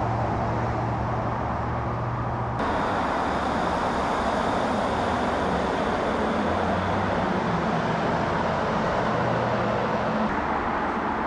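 Steady outdoor background noise with a low hum, like distant road traffic, which shifts abruptly to a brighter hiss about two and a half seconds in.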